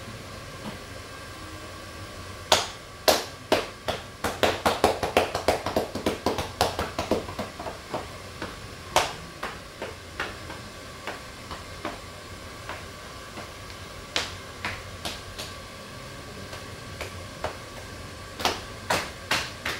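Percussive massage: hands slapping and chopping on a clothed back. A fast run of strikes starts a couple of seconds in, slower single blows follow, and another quick burst comes near the end.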